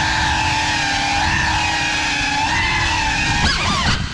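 GEPRC CineLog35 cinewhoop's motors and ducted propellers whining at a steady pitch in fast indoor flight. Near the end the pitch swings rapidly up and down as the throttle is worked.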